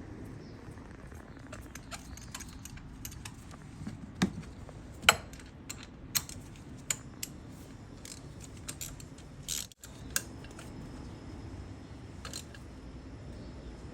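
Hand tools clinking and clicking against metal during spark plug work on a car engine: scattered sharp clicks over a low, steady background noise, the loudest about five seconds in. The sound drops out for a moment shortly before the ten-second mark.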